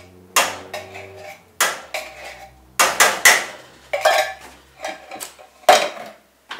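Metal utensil clinking and scraping against a tin of coconut milk and a saucepan: about seven sharp metallic knocks with brief ringing, spread unevenly through the few seconds.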